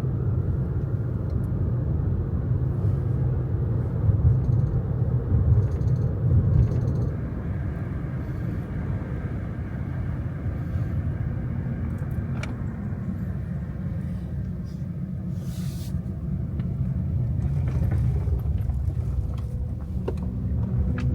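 Car driving on a road: a steady low rumble of engine and tyre noise, easing slightly about seven seconds in.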